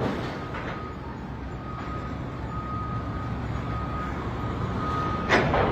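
Heavy machinery running with a steady low rumble while a back-up alarm beeps over and over at one high pitch, with one short, loud, sharp noise about five seconds in.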